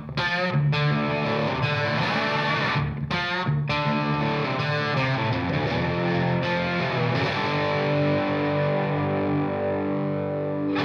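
Background rock music led by a distorted electric guitar, with some bending notes and held notes near the end.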